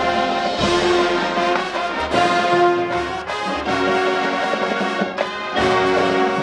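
High school marching band playing, its brass holding loud chords in short phrases about a second or so long, with percussion hits at the phrase starts.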